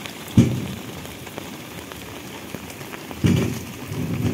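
Light rain pattering, with two louder low splashes about half a second in and near the end as muddy water is scooped from a puddle by hand.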